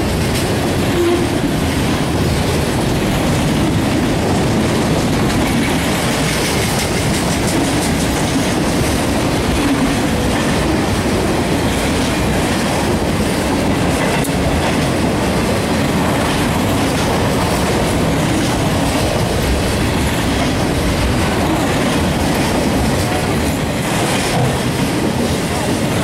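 Freight train of autorack cars rolling past, a steady rumble of steel wheels on rail with rapid clicking over the rail joints.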